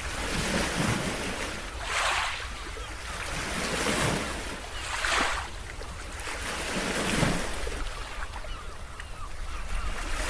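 Ocean waves washing in, the noise swelling and falling away in surges every one to two seconds over a steady low rumble.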